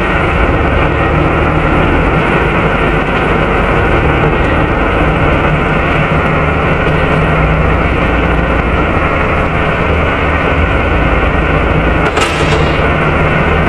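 Volvo B7RLE bus's six-cylinder diesel engine and engine cooling fan running steadily, heard from inside the passenger saloon near the rear. A brief high hiss sounds near the end.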